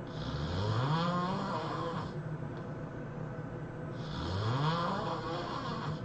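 A person snoring: two long snores of about two seconds each, the second starting about four seconds in. Each snore rises in pitch from a low rattle, with a hiss of breath running through it.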